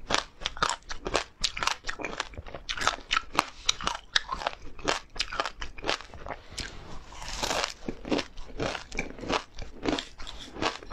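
Close-up crunchy biting and chewing of oil-fried dried chilies and crisp fried perilla and flax seeds. It comes as a rapid, irregular run of sharp crunches, several a second.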